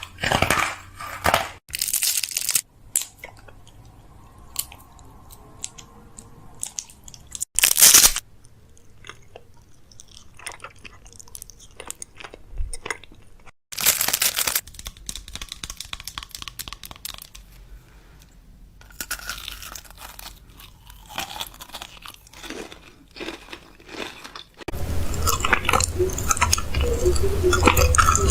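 Restocking sounds: packaging and containers handled, with crinkling, crunching rustles, taps and clinks, and a few louder rustling bursts.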